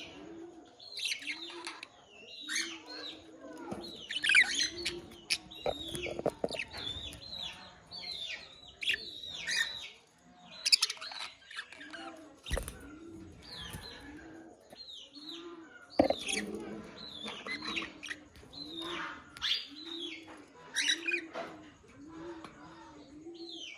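Budgerigars chirping and warbling together in quick, overlapping chattering phrases. A low note repeats steadily underneath, and there are a few sharp clicks.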